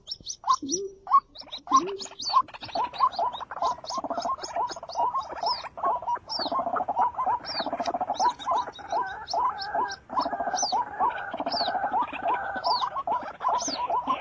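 A dense chorus of animal calls: rapid, high, short chirps over a steady run of lower calls repeated several times a second.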